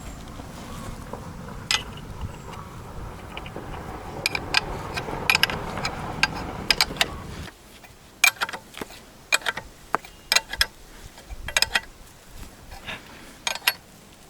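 A wrench turning the screws of coil spring compressors on a car's rear strut, making a string of sharp metallic clicks in quick clusters. A steady low rumble runs under the first half and cuts off suddenly.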